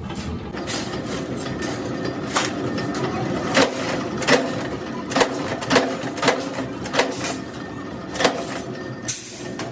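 Power punch press blanking trowel blades from a steel sheet: a steady hum of the motor-driven flywheel, with about ten sharp metallic clunks as the ram strikes, irregularly spaced at roughly half a second to a second apart.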